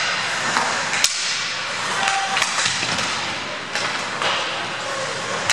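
Ice hockey play: skate blades scraping and hissing on the ice, with several sharp clacks of sticks and puck, the loudest about a second in.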